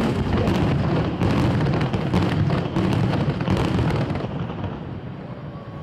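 Aerial fireworks shells bursting in a rapid barrage, dense bangs and crackling for about four seconds, then thinning out and fading.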